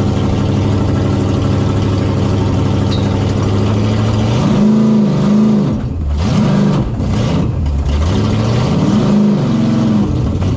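Bog truck's engine heard from inside the cab, running steadily, then revved up and down several times through the middle before settling back to a steady tone.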